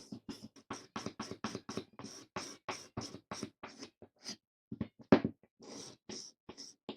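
Rapid back-and-forth scraping strokes on a vintage wooden hand plane, about five a second, with one sharper, louder stroke about five seconds in.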